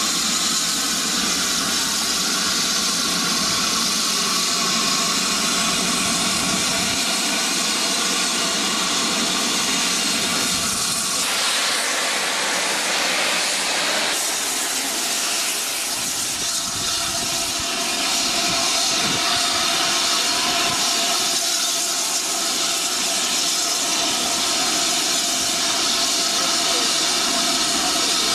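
Steam hissing steadily from the BR Standard Class 7 'Britannia' steam locomotive 70013 Oliver Cromwell, with a louder rush of steam for a few seconds near the middle.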